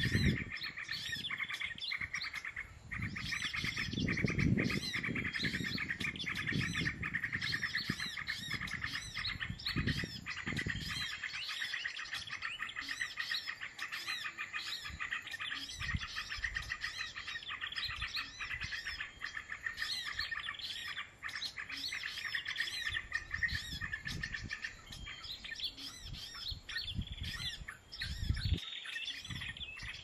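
Many small songbirds chirping and twittering densely and without pause, with a low rumble through roughly the first ten seconds.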